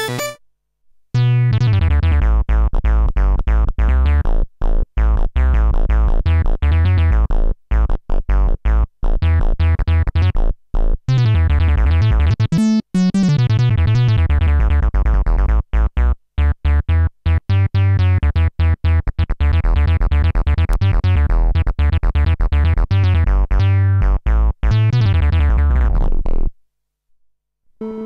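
Arturia MatrixBrute analog synthesizer playing a loud, low bass line of rapid, short notes with bright overtones, starting about a second in and with a falling pitch glide midway. It stops about a second and a half before the end.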